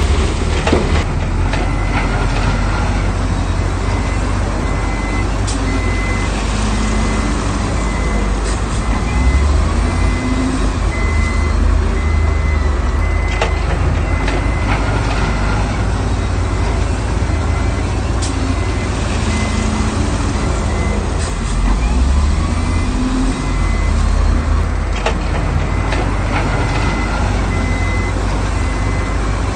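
Heavy earthmoving machinery, a bulldozer and dump trucks, running steadily with a low engine rumble while a reversing alarm beeps at an even pace. A few sharp clanks stand out over the engines.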